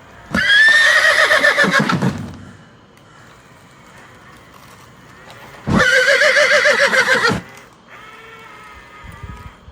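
Two loud, quavering animal calls, each about one and a half to two seconds long and about five seconds apart, followed by a fainter pitched call near the end.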